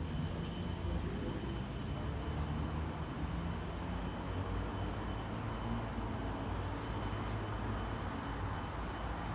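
Steady rainy city-street ambience: a low rumble of traffic under an even hiss of rain on wet pavement, with a faint steady high tone and a few light ticks.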